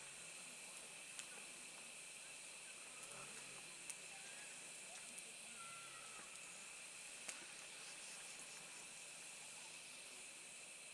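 Faint wood fire burning in a fire pit: a steady low hiss with a few sharp crackles, the loudest about four seconds and seven seconds in.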